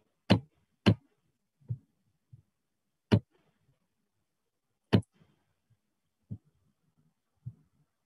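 Computer mouse clicking, about eight sharp single clicks at an irregular pace, the loudest in the first second and around three and five seconds in.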